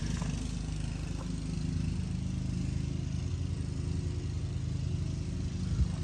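A steady low engine hum, even and unchanging, with a single light knock near the end.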